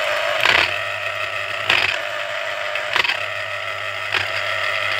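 Yelmo EX 1303 electric citrus juicer running as an orange half is pressed onto its spinning reamer cone: a steady motor hum under the scraping of rind and pulp, with a sharper pulse about every second.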